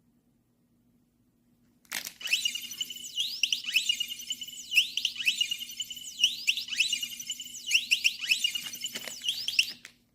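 Electronic anti-theft alarm sounding: a high steady tone broken up by quick rising chirps, the pattern repeating about every one and a half seconds. It starts about two seconds in and stops near the end.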